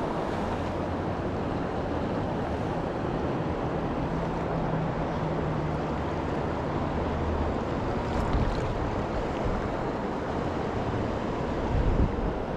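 Creek water rushing steadily over rocks.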